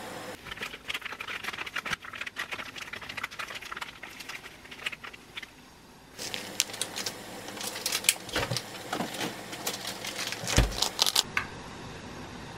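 MSG granules shaken from a plastic bottle rattle into a plastic tub as a rapid run of fine ticks. After a short lull, a seasoning bag crinkles as red powder is tipped in, with two soft low thumps.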